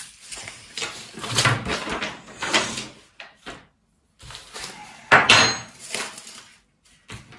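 Sprouting containers and a seed packet being handled on a wooden table: irregular clattering and rustling, then a sharp clink about five seconds in that rings briefly.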